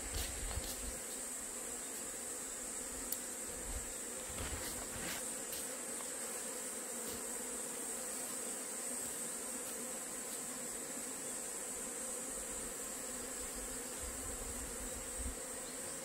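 A swarm of honeybees buzzing steadily around their cluster on a pine branch. This is a natural swarm that has left its hive, which the beekeeper puts down to a newly hatched queen. A steady high insect whine runs over the buzz.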